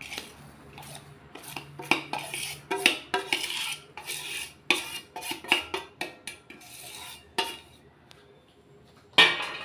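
A spoon scraping and clinking against a cooking pan while stirring roasted gram flour in ghee, in irregular strokes that ease off after about seven seconds, with one louder clink near the end.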